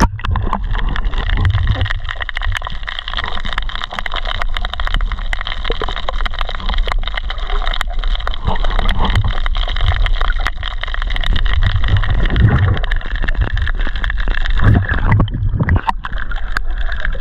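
Underwater sound picked up by a camera in its waterproof housing: a steady muffled hum and rumble with constant crackling clicks, briefly dropping out about fifteen seconds in.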